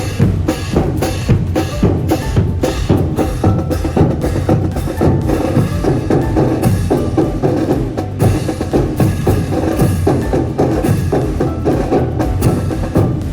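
Marching brass band music led by drums and percussion, beating a steady march rhythm with sharp clacking strokes.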